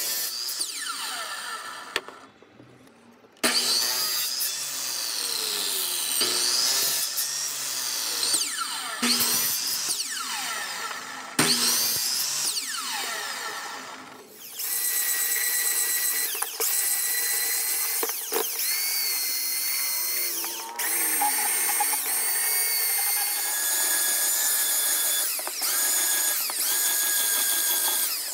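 Electric miter saw cutting pallet-wood boards several times, its motor whine falling each time the blade winds down after a cut. In the second half a power tool runs steadily with a high whine in short spliced segments, ending with an electric sander working a small board.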